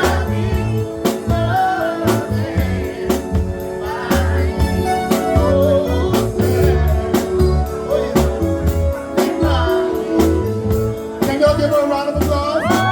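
Background music: a song with a sung vocal melody over bass and a steady drum beat, cutting off abruptly at the end.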